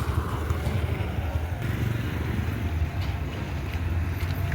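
Motorcycle running under way, a steady low engine drone.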